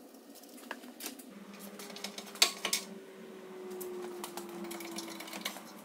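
Scattered light clicks and metallic taps of hand tools and fittings at work on the car, the sharpest about two and a half seconds in, over a faint hum that slowly falls in pitch.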